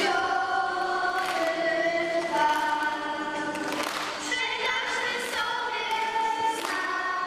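A mixed group of children and adults singing together as a choir, with held notes that change about once a second.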